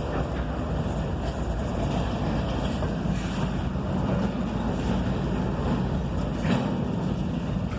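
CSX freight train rolling by: a steady low rumble of the locomotives and wheels on the rails, with wind noise on the microphone.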